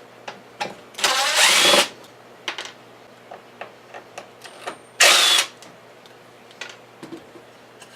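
A power tool runs in two short bursts, the first just under a second and the second about half a second, each stopping abruptly. Light knocks and taps fall between them. This is the dado being cut into a half-inch MDF table-saw insert.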